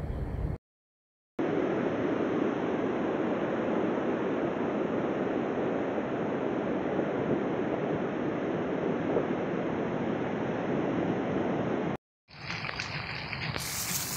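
Steady rushing of a muddy river in flood, a torrent running in spate. It starts about a second in and cuts off near the end.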